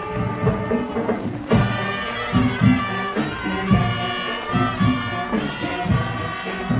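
Marching band music: brass instruments playing a tune over a steady drum beat, the brass growing fuller about a second and a half in.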